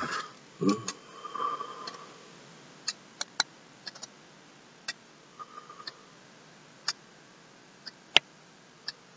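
Light ticks about once a second, like a clock, among a few other sharp clicks; the loudest click comes about eight seconds in.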